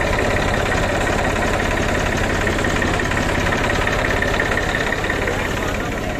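Massey Ferguson 241 DI tractor's three-cylinder diesel engine idling steadily.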